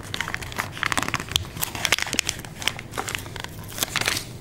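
A plastic sleeve and sticker sheet crinkling and crackling under fingers as stickers are picked off, in quick, irregular crackles.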